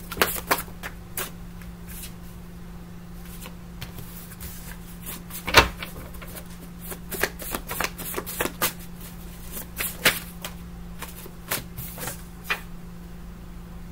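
Tarot cards being shuffled and handled, making scattered crisp snaps and taps, with one louder tap about five and a half seconds in. A steady low hum runs underneath.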